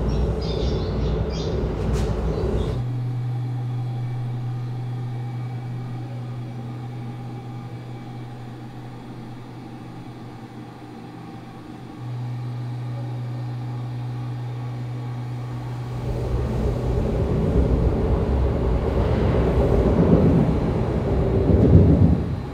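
Keikyu Line train passing on the elevated tracks overhead, heard from the room beneath as a low rumble that builds over several seconds and peaks near the end. A shorter stretch of the same rumble at the start cuts off abruptly. Between the two there is a steady low hum.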